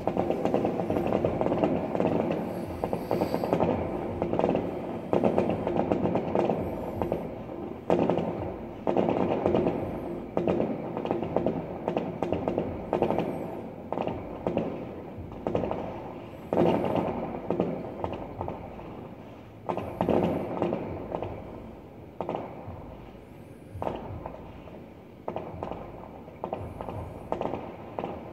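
Fireworks display: a dense run of bangs and crackling that thins out to separate, echoing bangs about every three seconds near the end.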